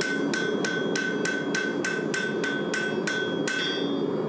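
Blacksmith's hammer striking hot steel on an anvil in a steady rhythm, about three blows a second, each blow leaving a bright ringing note. The hammering stops shortly before the end.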